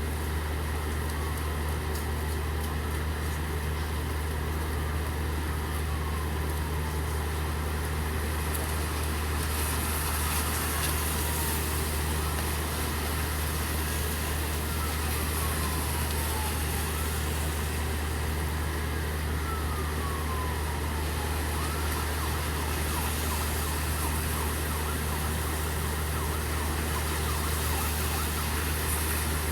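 Steady rain hiss over a constant low engine hum, with a distant siren wailing faintly. The siren's repeated falling sweeps fade out about two-thirds of the way through.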